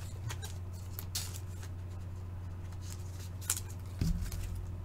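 Scattered light rustles and small clicks of a trading card being handled and slid into a plastic sleeve, over a steady low electrical hum.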